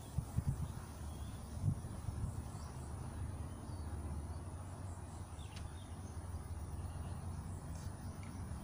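Rural outdoor ambience: a low wind rumble on the microphone, with a few low bumps in the first two seconds and faint, scattered bird chirps.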